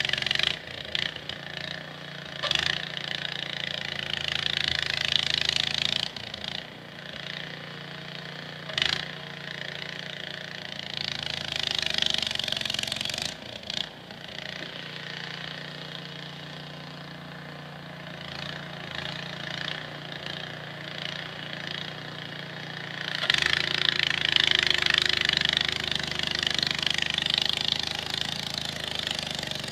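Small engine running steadily at an even pitch, with loud hissing surges that come and go several times.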